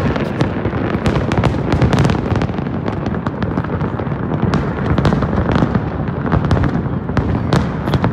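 A fireworks display going off in a dense, continuous barrage: many overlapping bangs and crackles over a steady rumble.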